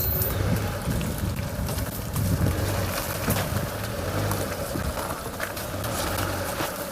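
Tree branches scraping along a car's body as it drives off-road: many short, irregular scrapes and clicks over the steady low drone of the engine.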